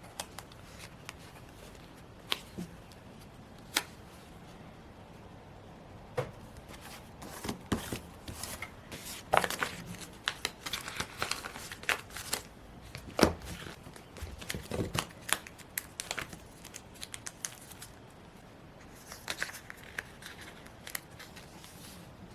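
Hands working with paper, stickers and washi tape on a planner page: irregular crinkling and rustling with scattered sharp clicks and taps, busiest in the middle.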